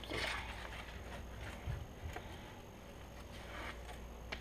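Faint handling sounds: a brief rustle at the start, a dull knock on the counter partway through, another soft rustle and a sharp click near the end, as hands work small pieces of a foam squishy.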